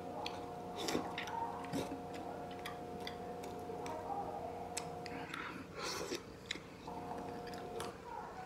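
A person eating braised chicken close to the microphone: lip smacking and chewing, with scattered sharp clicks as meat is pulled off the bone, over a steady faint hum.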